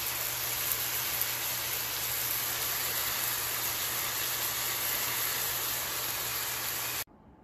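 Pear slices frying in hot vegetable oil in a nonstick pan: a steady sizzling hiss with a few faint pops, over a low steady hum. The sound stops abruptly near the end.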